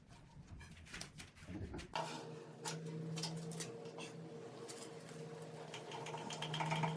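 Wood lathe motor running with a steady hum that starts abruptly about two seconds in, with scattered clicks and light scraping over it.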